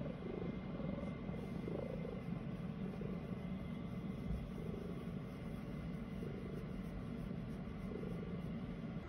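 Domestic cat purring steadily while being stroked.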